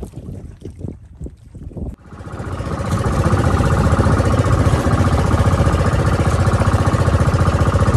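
A few irregular low thumps, then about two seconds in a boat engine comes up over about a second and runs loud and steady with a fast, even pulse.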